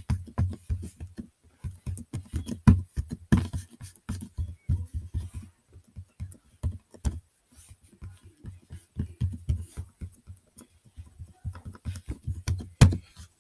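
Slime being squeezed and kneaded by hand: an irregular run of wet squishing clicks and little pops.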